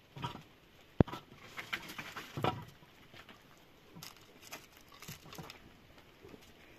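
Scattered knocks, scrapes and rustles of firewood and ash being handled at the mouth of a stone oven, with one sharp knock about a second in and lighter ticks later on.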